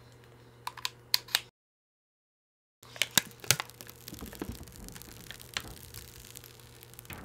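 A few sharp clicks as a USB cable is pushed into the LED mask's plastic handheld controller, then, after a moment of dead silence, the crinkling and crackling of a clear plastic protective film being peeled off the LED face mask.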